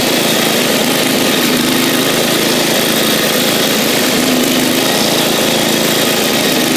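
Bolens riding tractor's engine running steadily as it drives along.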